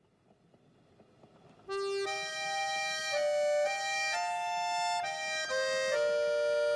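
Background music: an instrumental introduction of held melodic notes and chords that starts suddenly about two seconds in, after a faint hiss.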